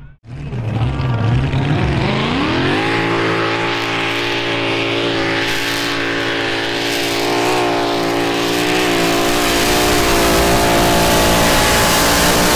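Mini Modified pulling tractor's supercharged engine revving up about two seconds in, then held at a steady high pitch at full throttle while it pulls the weight sled.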